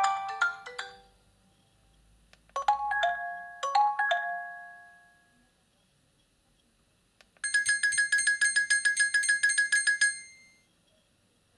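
Nokia 8000 4G tones played in turn through the phone's speaker. A melody fades out about a second in, then come two short chiming phrases about a second apart. About seven seconds in, a fast, evenly repeating high beep runs for nearly three seconds and stops.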